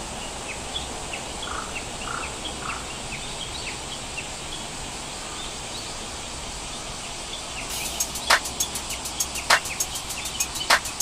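Rural outdoor ambience full of short, high, repeated chirps, with three lower calls a couple of seconds in. About eight seconds in, a run of sharp clicks begins, with a louder knock roughly every second and a bit.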